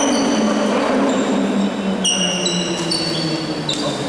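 Basketball shoes squeaking on the court during play: many short, high squeaks that overlap and come thick from about two seconds in, over indistinct voices in the gym.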